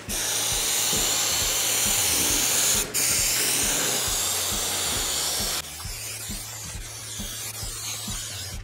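Aerosol spray adhesive hissing out of the can in two long sprays onto seat foam, with a brief break just before three seconds in; the spraying stops about five and a half seconds in.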